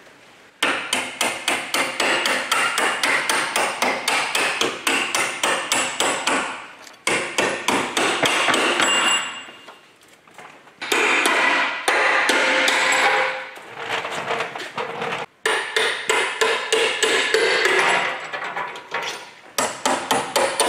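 Hand hammer beating on a metal drift in fast runs of sharp metal-on-metal blows, about four or five a second, broken by a few short pauses. The blows are driving a rusty spring shackle bolt out of the front axle's leaf-spring shackle on a DAF LF45 truck.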